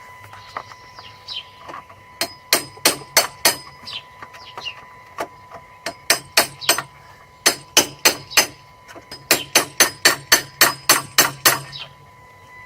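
Runs of sharp metal-on-metal taps, a hammer knocking a metal rod against a Citroën C2's starter motor, coming faster, about four a second, near the end. The taps are meant to jolt a sticking starter into turning while it is wired straight to the battery, and the engine does not start.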